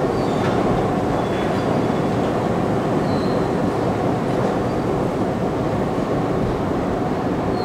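Steady mechanical rumble of a subway station concourse with escalators running, with a few faint, brief high squeaks now and then.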